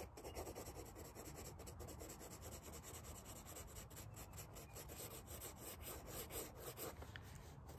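Graphite pencil shading on sketchbook paper: faint, quick scratchy strokes repeating throughout.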